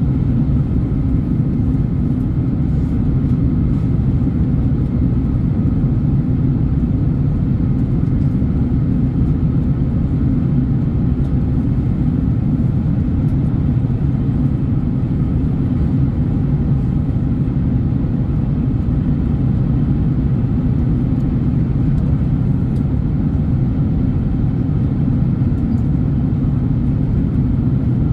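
Steady low drone inside the cabin of an Airbus A330neo airliner in flight: its Rolls-Royce Trent 7000 engines and rushing airflow, unchanging throughout.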